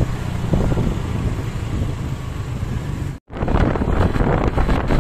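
Road traffic rumble with wind buffeting the microphone, broken by a sudden brief dropout about three seconds in.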